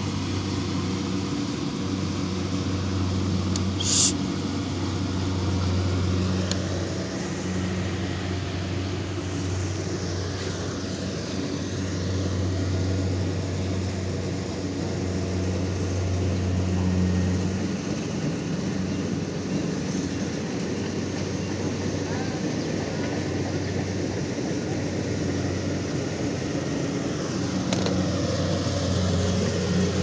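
Rice harvester's engine running with a steady low hum, and a brief sharp click about four seconds in.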